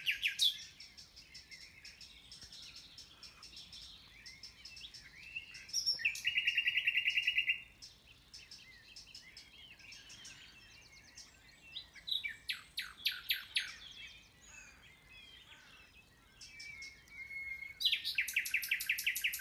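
Common nightingale singing: loud phrases of fast repeated notes, one about 6 seconds in and another near the end, with a run of loud sweeping notes in the middle and quieter varied phrases between. Other birds call faintly behind it.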